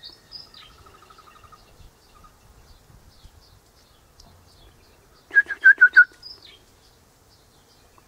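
Eastern rosella calling: a quick run of five sharp, loud piping notes about five seconds in, followed by a falling whistle, with fainter whistles and a short trill near the start.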